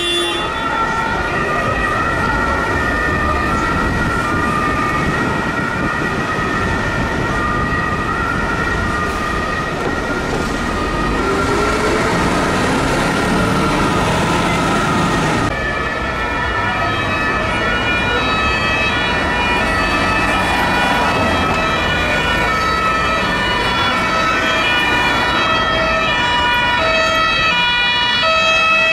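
Several emergency-vehicle two-tone sirens sounding at once and out of step, their high-low notes overlapping, over the steady noise of truck engines and traffic.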